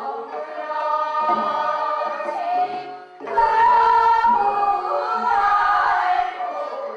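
Several voices singing together in chorus in a Korean sori-geuk, the traditional folk-song musical drama, with long held notes. The singing dips briefly about three seconds in, then swells back louder.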